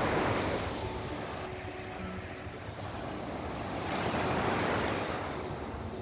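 Sea surf washing onto a sandy beach, swelling twice as waves break and run up the sand.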